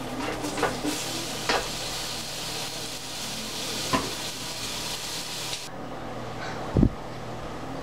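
Meat sizzling as it drops into hot oil with onion and garlic in a pot, with a few light clicks; the sizzle cuts off suddenly about five and a half seconds in, and a loud dull thump comes near the end.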